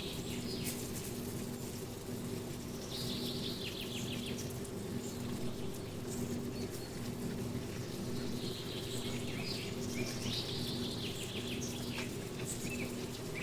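Birds singing: a few high, trilled phrases that fall in pitch, a few seconds apart, over a steady low hum.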